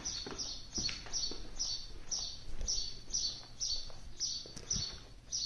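A bird chirping over and over outside, one short high note falling in pitch about three times a second, with a few faint knocks underneath.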